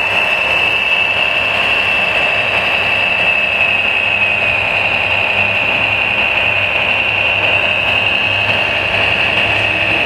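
Electric hydraulic pump of a radio-controlled scale model machine running at constant speed, giving a steady high-pitched whine over a low hum.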